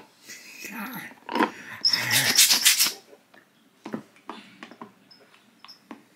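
A dog play-growling over a rubber spiky toy ball, a loud rough burst lasting about three seconds, then quieter scattered clicks and taps as it chews the ball.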